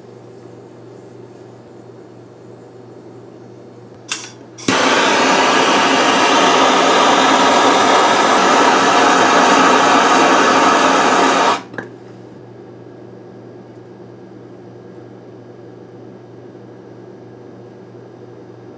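Handheld gas torch lit with a short puff, then hissing steadily for about seven seconds before it is shut off suddenly. It is heating a bronze disc to solder a strap onto it.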